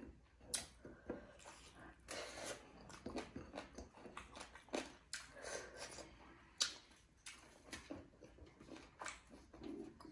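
Close-up eating sounds: a person chewing a mouthful of rice and buffalo meat, with irregular wet lip-smacks and mouth clicks.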